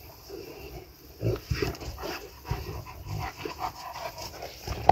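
Boerboel dogs play-wrestling: irregular short dog noises and bumps with panting, loudest about a second and a half in.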